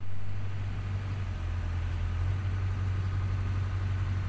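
Sany SY60C mini excavator's diesel engine running steadily, a low even hum.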